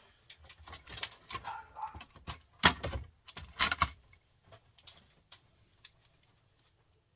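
Small printer parts clicking and clattering as they are handled and sorted, with a busy run of knocks in the first few seconds and then a few scattered ticks.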